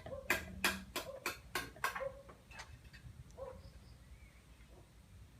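A dog barking in a rapid, even run of yaps that fades out about two seconds in, then a single bark a little later.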